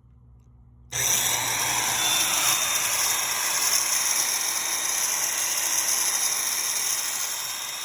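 Hougen HMD 904 magnetic drill's motor switched on and running steadily at speed, after a faint low hum; the motor starts suddenly about a second in.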